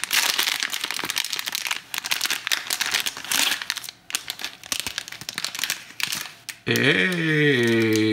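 Crinkling of a silver foil blind-box wrapper as it is handled and opened by hand. Near the end, a man's drawn-out wordless vocal sound, about a second and a half long.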